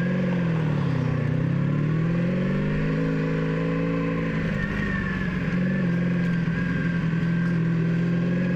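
1985 Honda Magna 700's V4 engine running through exhaust pipes with a few holes drilled in each, which the rider says sounds better. The engine note rises, dips about a second in, climbs again until about four seconds in, then drops and holds steady.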